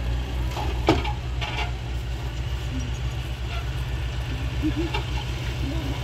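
Heavy Hyundai dump truck diesel engine running with a steady, low pulsing rumble, with a sharp knock about a second in.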